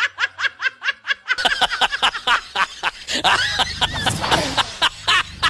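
Rapid high-pitched laughter, a string of quick 'ha' pulses about six or seven a second, running after about a second and a half into a busier stretch of overlapping high voices with sliding pitch.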